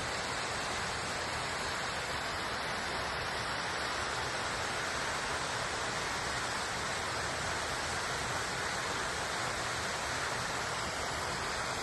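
Small waterfall of spring meltwater from the mountains, splashing and rushing steadily.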